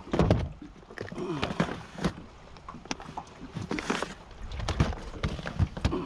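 Irregular knocks and clatter of fishing gear and plastic tackle boxes being handled in a small aluminium boat.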